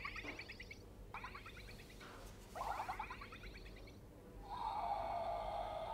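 Electronic sound effects from a light-up toy dinosaur: a few short rasping calls made of fast pulses, then a longer, steadier call about four and a half seconds in.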